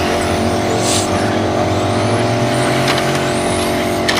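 Electric 1:10 RC touring cars racing on an asphalt track, their motors whining up and down in pitch as they pass, over a steady hum.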